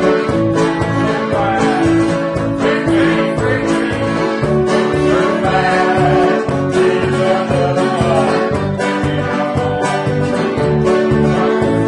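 Acoustic country-style string-band music: plucked guitar, with banjo, over a steady bass beat.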